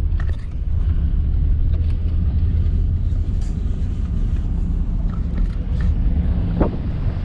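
A motor vehicle's engine running steadily at speed, a heavy low rumble with wind buffeting the microphone.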